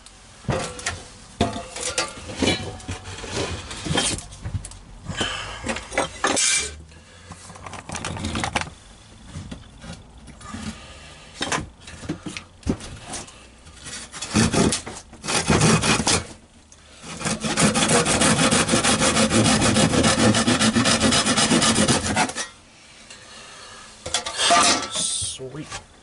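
Hand saw cutting through a wooden board: uneven back-and-forth strokes at first, then a fast, steady run of strokes for about five seconds until the cut goes through. A few knocks follow near the end.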